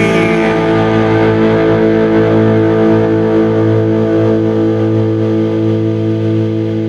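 The song's final chord held and left to ring, with distorted electric guitar sustaining steadily and no singing.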